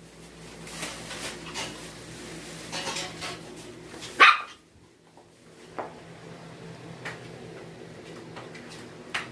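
Pet dog barking: one sharp, loud bark about four seconds in, with a few softer short sounds before and after it.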